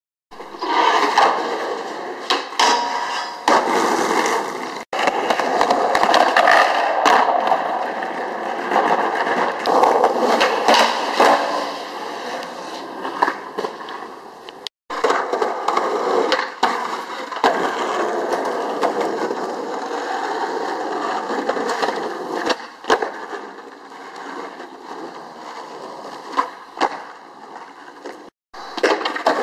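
Skateboard wheels rolling on concrete and asphalt, with repeated sharp clacks and slaps of the board hitting the ground. It breaks off abruptly three times where clips are cut together.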